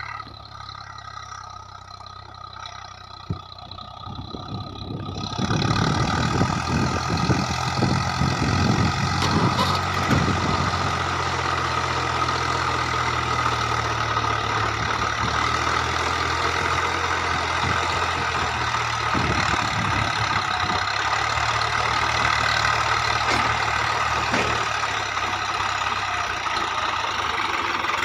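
Tractor diesel engine running steadily, getting clearly louder about five seconds in and then holding at that level.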